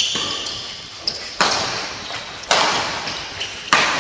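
Badminton rally: rackets striking the shuttlecock about once a second, each hit sharp and dying away in the echo of a large sports hall.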